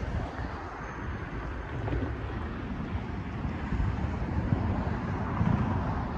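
Wind gusting on the microphone over the steady hiss of cars driving past on the road.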